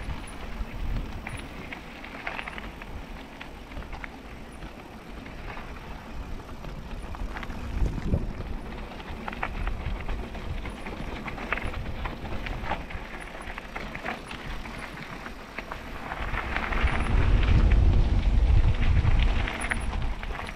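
Mountain bike riding down a gravel trail: tyres on loose ground, with frame and drivetrain rattling and clicking over bumps. A heavy low rumble rises near the end.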